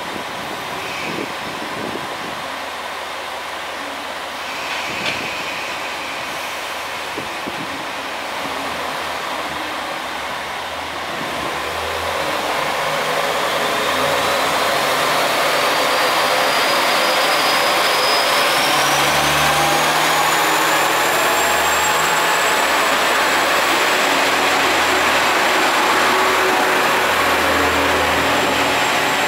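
KiHa 47 diesel railcar idling at the platform, then its engine opening up about twelve seconds in as the train pulls away. A high whine rises in pitch and then holds steady while the cars pass close by.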